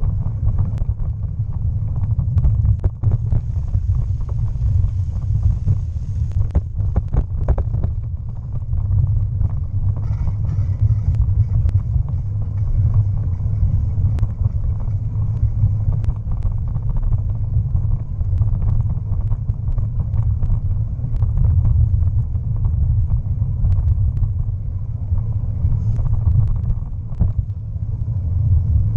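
Steady low rumble of a bicycle ride picked up by a bike- or body-mounted action camera: tyres rolling over the towpath with vibration and air buffeting on the camera, broken by scattered small clicks and rattles from the bike over the uneven surface.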